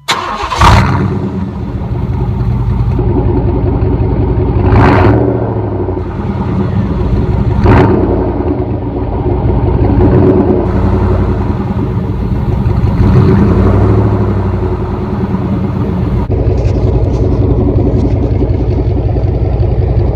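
Pickup truck engine starting and running through a newly fitted side-dump exhaust, with the catalytic converter still in place. It fires at once and is revved in short blips about three times in the first eight seconds, then runs on steadily. The sound changes abruptly about 16 seconds in.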